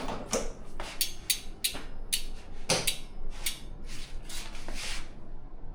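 A quick, irregular run of short clicks and scrapes, about a dozen in five seconds, from hands and tools working on a road bike. They stop shortly before the end.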